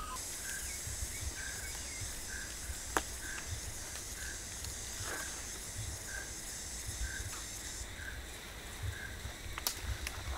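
Cicadas droning in a steady high buzz that cuts off abruptly about eight seconds in. A bird repeats a short note about once a second, and wind rumbles on the microphone. Two sharp clicks come about three seconds in and near the end.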